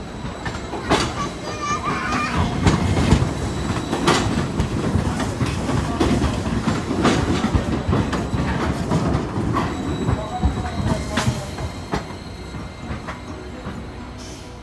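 A Hiroshima Electric Railway 5000-series Green Mover low-floor tram rolling past close by over the station's points and rail joints. It makes a low rumble, with sharp wheel clacks every few seconds and a brief thin squeal early on. The rumble is loudest mid-pass and eases near the end.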